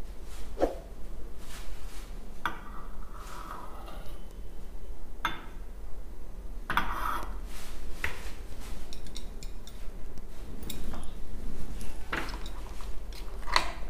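Metal spoon and stainless steel bowls clinking and scraping now and then, as oil is scraped from one bowl into another and stirred into thick chilli chutney, with stirring near the end.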